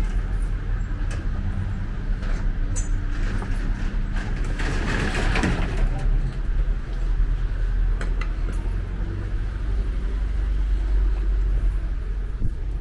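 City street traffic: a steady low engine rumble, with a louder rush that swells and fades about five seconds in, like a vehicle going by, and a few sharp clicks.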